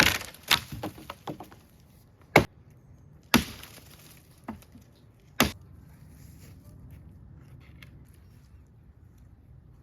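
Wood being chopped or split: sharp wooden knocks at irregular intervals, five loud strikes in the first six seconds with a quick run of smaller cracks after the second, then only a low steady background.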